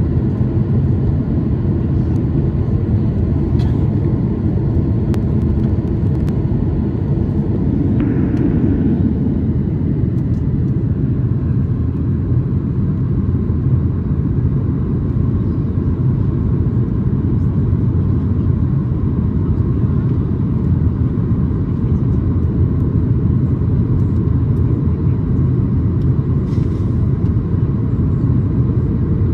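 Jet airliner cabin noise at a window seat over the wing in flight: a steady low rumble of engines and rushing air, even in level throughout, with a few faint ticks.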